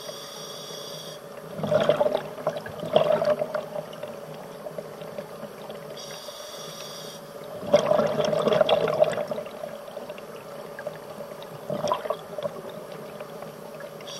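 Scuba diver breathing through a regulator underwater: a short hiss of inhalation, then a burst of exhaled bubbles, about every six seconds, twice, with a shorter bubble burst near the end, over a steady hum.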